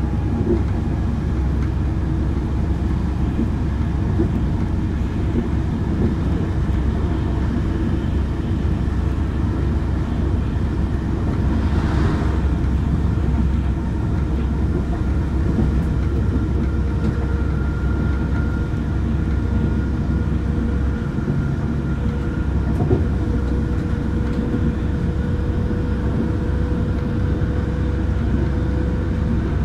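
Iarnród Éireann 201 class diesel locomotive with its EMD 12-710 two-stroke engine under way, heard from on board the train it hauls: a steady low rumble of engine and running noise with faint whines, one rising slightly in pitch partway through. A brief rushing noise about twelve seconds in.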